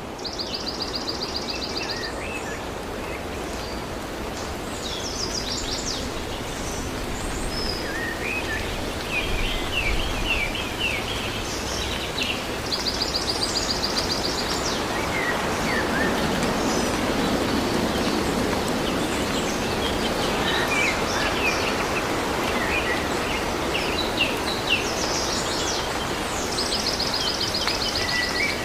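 Small birds chirping, with one fast, evenly pulsed high trill repeated three times about thirteen seconds apart. Under them is a steady outdoor background noise that grows louder in the middle.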